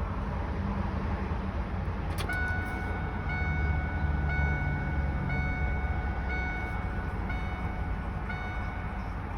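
A vehicle's electronic warning chime beeping evenly, about once a second, seven times, starting about two seconds in, over a steady low rumble.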